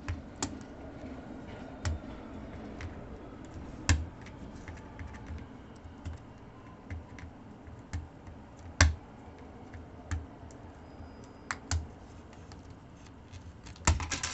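Scattered sharp plastic clicks and taps from a netbook keyboard being pried out of its retaining clips with a flat screwdriver and handled. The loudest clicks come at about 4 and 9 seconds in, with a quick cluster near the end.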